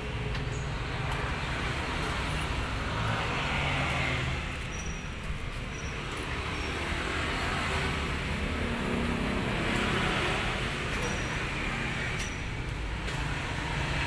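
Steady motor-vehicle traffic noise with a low engine hum underneath, swelling twice as vehicles pass, about four seconds in and again around ten seconds.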